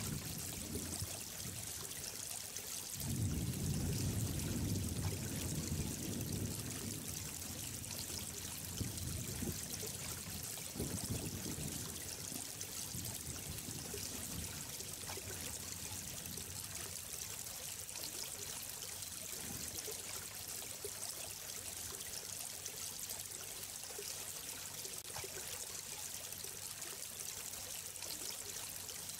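Running water flowing steadily with an even hiss. A louder low rumble comes in about three seconds in and fades a few seconds later.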